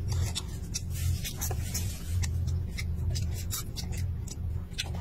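Close-up eating: a man chewing a mouthful of rice and fried chicken, with many small sharp clicks and smacks as chopsticks work the food from a plastic cup, over a low pulsing rumble.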